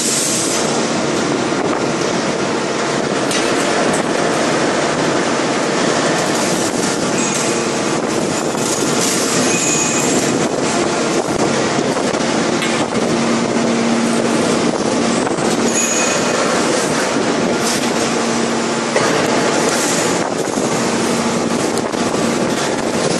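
5000-ton hydraulic open-die forging press working hot steel: a loud, steady industrial din with a constant low hum, scattered sharp clanks and brief high squeals.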